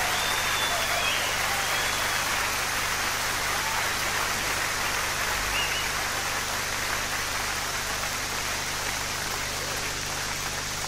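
Water running steadily into a bathtub, a continuous splashing hiss.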